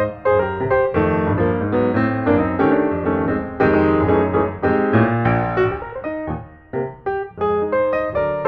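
Background piano music: a melody of single notes over chords, with a brief lull a little past the middle.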